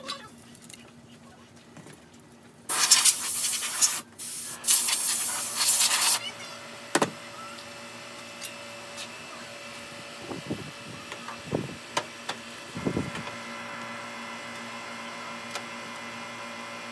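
An aerosol spray can hisses into a rice milling machine in two bursts, the first lasting about a second and the second about a second and a half, to kill insects inside. After that a steady machine hum made of several tones runs on, with a few light knocks and clicks.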